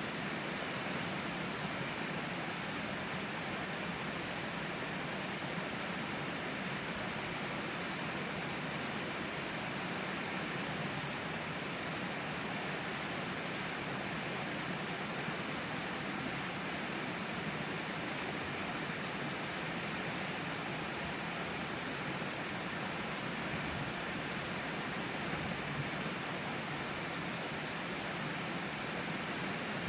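The Tama River flowing close by, a steady unbroken rushing of water. A steady high-pitched tone runs along with it.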